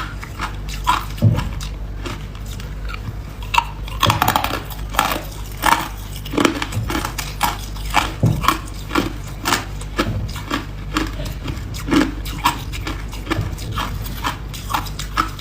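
Ice being bitten and chewed close to the microphone: a continuous run of irregular sharp crunches and cracks, several a second.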